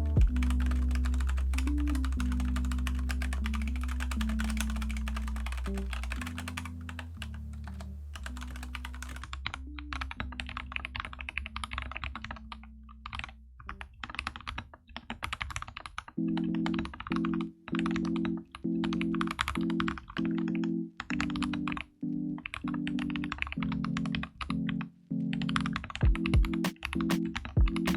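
Typing on a Kemove Snowfox 61 mechanical keyboard with Gateron Brown switches, a fast run of key clicks that thins out partway through and picks up again, with a few louder strokes near the end. Background music with held chords plays underneath.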